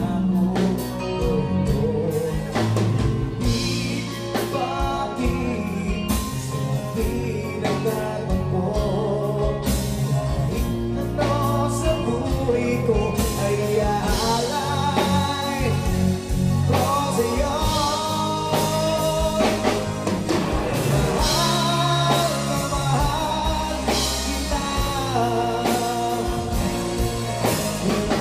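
Live band playing a love song: a woman singing lead over electric guitars, bass guitar and drums.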